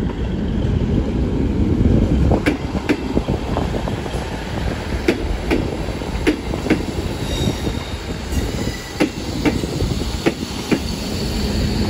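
South Western Railway Class 159 diesel multiple unit running into the platform: a low engine and wheel rumble, with sharp clicks in pairs as its wheelsets cross rail joints. A faint high wheel squeal comes in during the second half.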